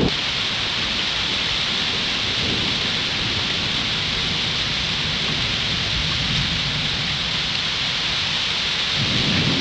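Heavy thunderstorm rain pouring down as a steady hiss, with a low rumble of thunder swelling slightly near the end.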